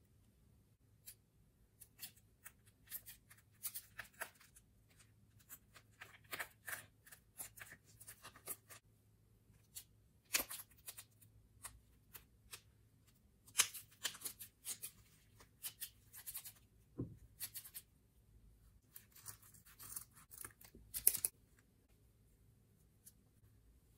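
Scissors snipping through the netting of a mesh stress ball: short, sharp cutting clicks in irregular clusters.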